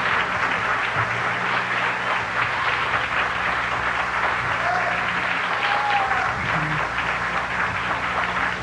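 Audience applauding, with a couple of short whoops about halfway through, over a steady low hum.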